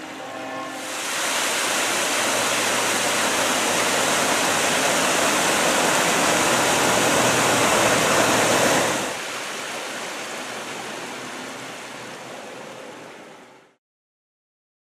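River water rushing over rocks and spilling over a low weir, a steady rush. It drops in level about nine seconds in and fades out near the end.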